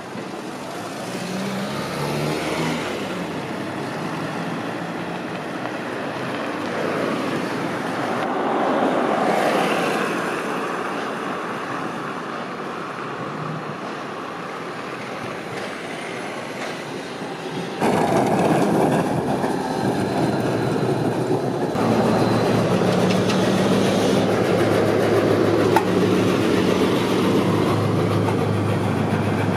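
Road traffic with a truck engine passing, then an Electron T3L44 tram rolling along the track. After a sudden change, a Tatra KT4SU tram pulls into a stop, with a steady low hum.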